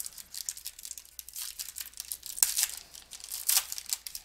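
Foil wrapper of a trading-card pack being torn open and crinkled: a dense run of crackling with sharper rips about two and a half and three and a half seconds in.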